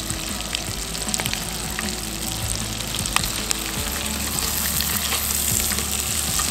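Fish searing in butter and oil in a frying pan, a steady sizzle with small crackling pops, while a spatula works the fish in the pan.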